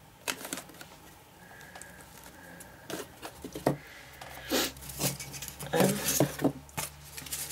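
Cut cardboard pieces being handled and pressed together on a tabletop: irregular taps, scrapes and rustles, sparse at first and busier from about three seconds in.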